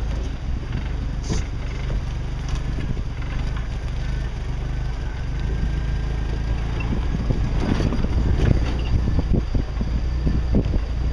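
Jeep engine running steadily at low trail speed, with scattered knocks and rattles as it crawls over rough ground, more of them in the second half.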